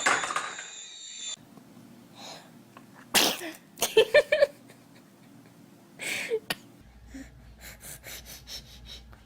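Babies sneezing: short, sudden sneezes, with a loud one about three seconds in, a quick cluster around four seconds and another about six seconds in.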